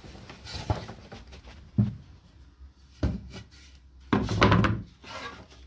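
Round wooden placemats being handled, lifted and set against one another, giving a few separate wooden knocks and thunks, loudest in a short clatter about four seconds in.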